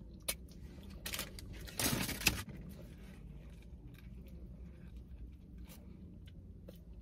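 Eating a burger: the paper wrapper rustles briefly about two seconds in, with a few small clicks and quiet chewing over a low steady hum.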